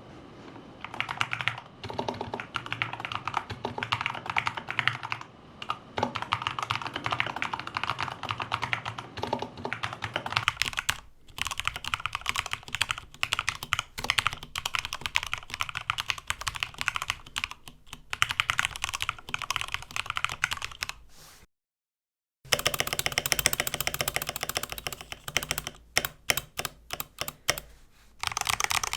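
Fast typing on a Corsair K70 Pro Mini Wireless 60% mechanical keyboard with lubed Cherry MX Speed Silver linear switches, after a tape mod and a cotton-swab stabilizer mod. The owner still finds it clacky and a little scratchy, which he puts down to there being no foam between the steel plate and the PCB. The sound cuts out for about a second two-thirds of the way through, and near the end the keys are pressed more slowly, one at a time.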